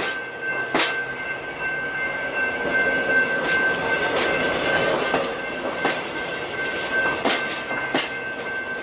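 Grand Canyon Railway stainless-steel passenger cars rolling slowly past close by: wheels clicking over the rail joints every second or so, over a steady rumble with a thin high-pitched tone held throughout.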